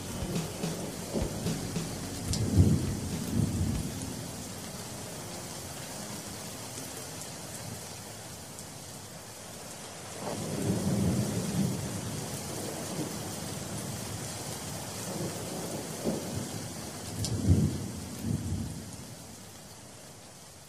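Thunderstorm sound effect: steady rain hiss with low rolls of thunder, about two seconds in, around ten seconds in and again near the end, the whole storm dying away in the last few seconds.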